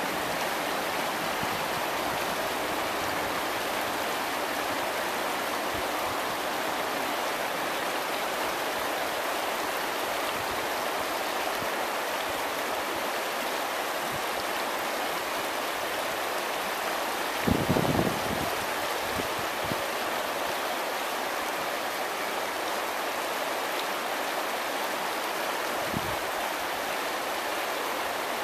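A broad, shallow river running over a stony riffle, giving a steady rush of water. A brief low rumble about two-thirds of the way through and a short thump near the end stand out over it.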